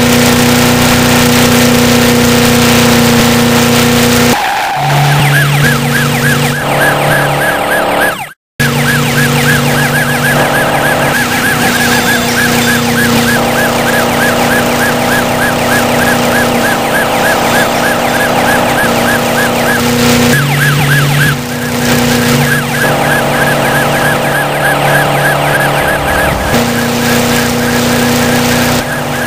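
Dubbed car-chase sound effects: a steady engine drone layered with a fast-warbling police siren. The track is spliced with abrupt cuts and drops out briefly about eight seconds in.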